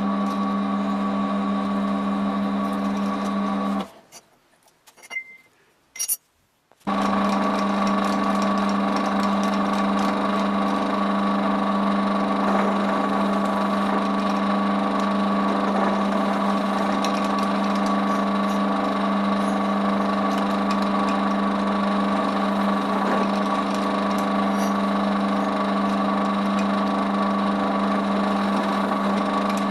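A machine-tool motor runs with a steady, loud hum on one constant pitch. About four seconds in it cuts out suddenly to near silence with a few faint clicks, then comes back about three seconds later and runs on unchanged.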